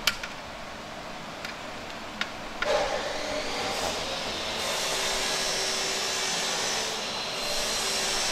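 A few sharp metal clicks as a wrench and the change gears on a mini lathe's gear train are handled. From about three seconds in, a steady hissing machine noise comes in and holds.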